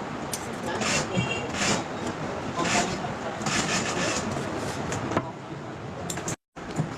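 Workshop noise: a steady background din with repeated scraping strokes, about one a second, from hand work on the pads. The sound drops out completely for a moment near the end.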